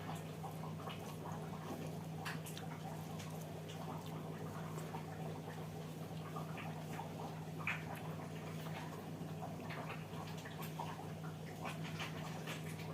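A person eating: soft chewing and small scattered mouth and hand clicks, over a steady low hum.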